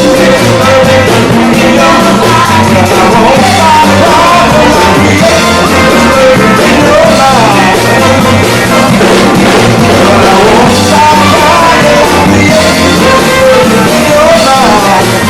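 A rock band playing loudly, with a gliding melody line over a steady bass.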